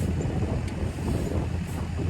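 A steady low engine rumble, with wind buffeting the microphone.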